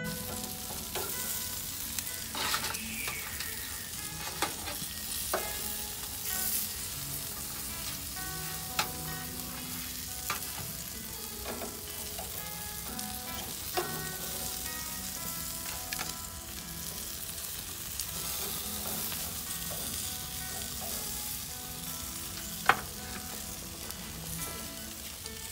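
Chicken inasal sizzling on a hot gas grill, a steady hiss. Scattered sharp clicks of metal tongs on the grate and tray punctuate it, the loudest near the end.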